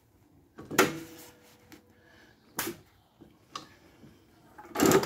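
A few short knocks and clicks as fabric is set in place at a PFAFF 2545 industrial sewing machine. Near the end the machine starts up with a louder, dense mechanical noise that has a fine, even rhythm.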